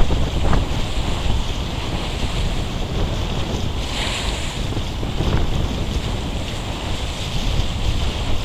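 Wind buffeting the microphone over the rush of sea water past a moving boat, with a brief hiss about four seconds in.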